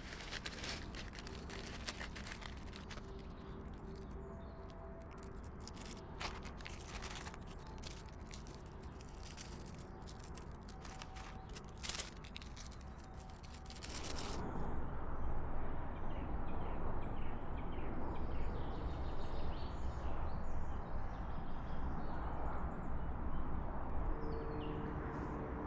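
Rustling and crackling of a food packet being handled and emptied into a steel mug, in a run of short clicks. About halfway through it gives way to a louder, steady woodland background with faint bird calls.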